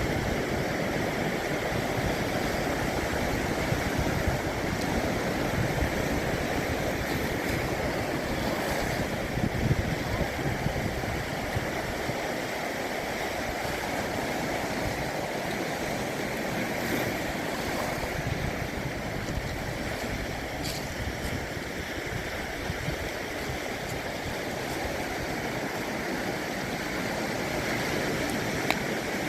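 Sea waves washing onto the shore in a steady, continuous rush of surf, swelling slightly now and then.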